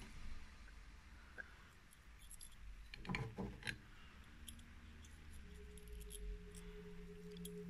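Faint clicks and clinks of small steel revolver parts being handled and greased, with a quick cluster of clicks about three seconds in. Soft background music comes in over the second half.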